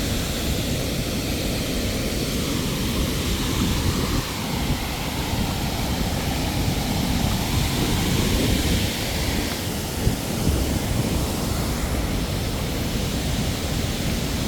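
Waterfall rushing steadily, an even roar of falling water with a low rumble underneath.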